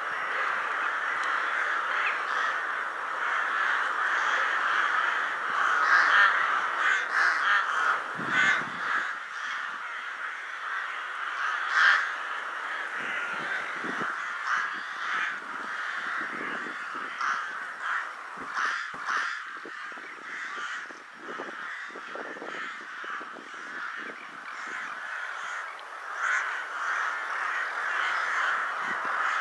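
A huge winter flock of rooks cawing overhead as they gather before roosting: many birds calling at once in a dense, continuous chorus, fuller in the first third, with single calls standing out here and there.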